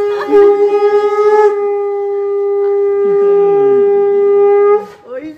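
Conch shell (shankha) blown in one long, steady, loud note that wavers briefly just after the start and cuts off sharply near the end; the conch is sounded in welcome during a Bengali boron ritual.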